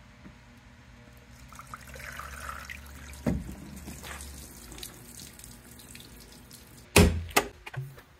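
Water running and trickling off the rear window of an SN95 Ford Mustang, then a sharp clunk and a few clicks near the end as the trunk lid is opened.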